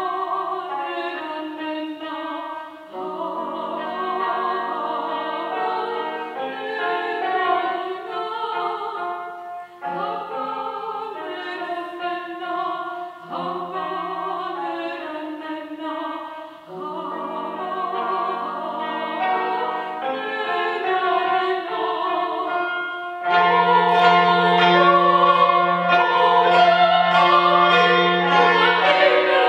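A woman singing a classical art song, accompanied by a cimbalom struck with hammers. The phrases are broken by short pauses, and the music gets louder and fuller about three quarters of the way through.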